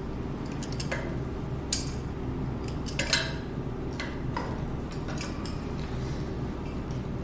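A metal hand tool clinking and tapping against brass valve fittings and steel pipe: several separate sharp clinks, the loudest about three seconds in. A steady low machinery hum runs underneath.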